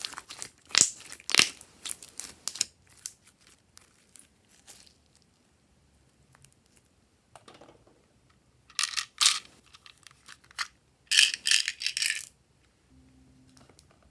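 Glossy slime being handled, giving bursts of sharp clicking and crackling pops: a cluster at the start, then again about nine seconds in and near the end.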